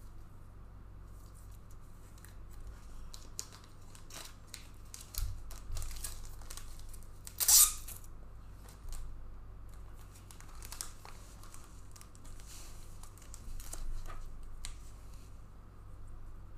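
Trading-card packaging being handled: tearing and crinkling with scattered small clicks and rustles, and one louder sharp tear about seven and a half seconds in. A steady low hum runs underneath.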